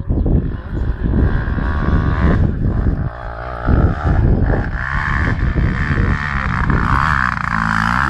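Enduro dirt bike engine running under throttle on a climb, growing louder as it nears and loudest in the last couple of seconds.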